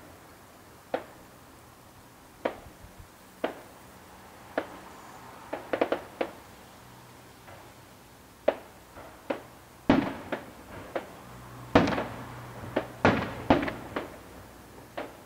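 Aerial firework shells bursting at a distance: a string of sharp bangs at irregular intervals, each trailing off in a short echo. They come faster and louder in a cluster in the second half.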